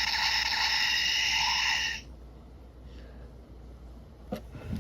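Dangerous Zombie Gashat toy's small speaker playing a steady, buzzing electronic sound effect that cuts off suddenly about two seconds in, followed by a light handling click near the end.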